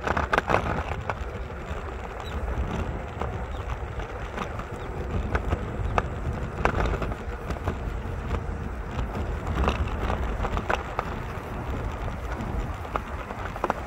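Footsteps crunching now and then on a thin layer of fresh snow, at an uneven pace, over a steady low rumble of wind on the microphone and road traffic.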